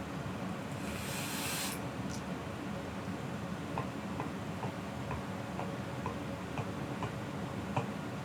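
A brief airy hiss about a second in, drawing on a vape, then from about halfway a run of soft ticks, two or three a second, over a steady low hum.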